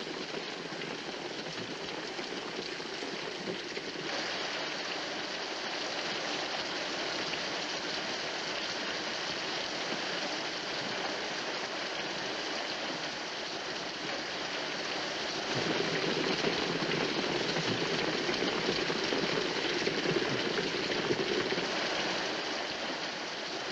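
Heavy rain pouring steadily, growing louder and fuller about two-thirds of the way in.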